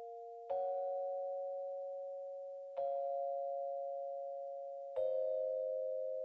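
Soft, bell-like two-note chords from the background music's quiet opening. A new chord is struck three times, roughly every two seconds, and each rings on, slowly fading.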